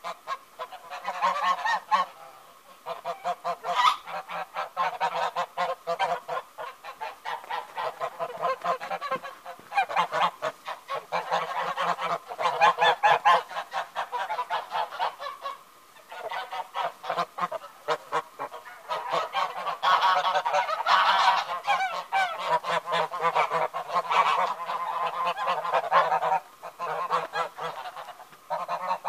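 A flock of domestic geese honking, many rapid calls overlapping in long runs, with a few short lulls.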